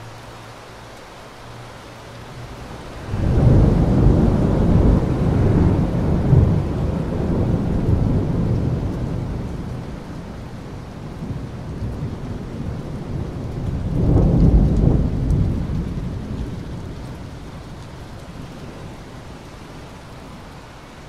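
Steady rain with a long roll of thunder that breaks in suddenly about three seconds in, rumbles for several seconds, swells again later and then fades away.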